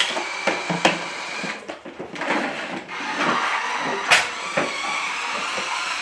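Toy truck's small electric motor whirring as it drives, with scattered clicks and knocks and a sharp click about four seconds in.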